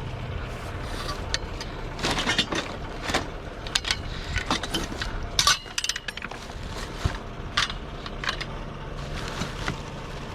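Hard household objects clinking, knocking and rattling irregularly as someone rummages through a box of discarded items.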